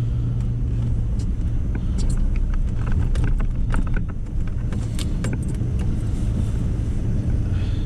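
Pickup truck driving on snow-covered road, heard from inside the cab: a steady low rumble from the engine and tyres, with scattered sharp clicks and rattles, most of them in the middle few seconds.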